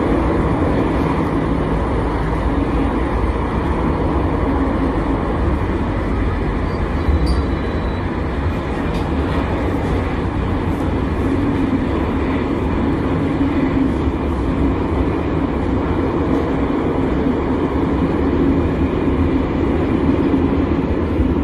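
Metro train running between stations, heard from inside the passenger carriage as a steady, even noise with a low hum.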